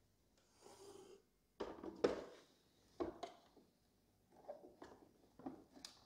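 Clear plastic water tank of a Hotpoint for Illy espresso machine being handled and fitted into the machine's base. A brief rush of noise comes about half a second in. Then comes a few hard plastic knocks, and lighter knocks and scraping near the end as the tank is pushed into place.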